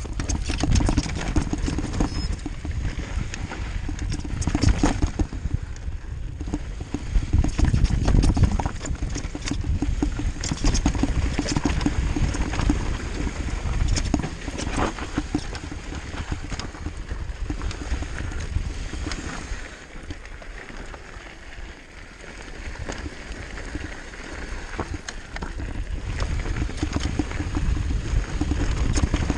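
Mountain bike descending a rocky gravel trail: tyres crunching over stones, with the frame, chain and components rattling in many quick, irregular knocks over a steady low rumble. It eases for a couple of seconds about two-thirds of the way through.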